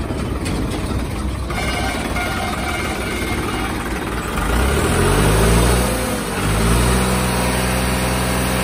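New Holland 5620 tractor's diesel engine running, then revved twice in the second half: the pitch climbs, drops back briefly, and climbs again to a higher speed that it holds.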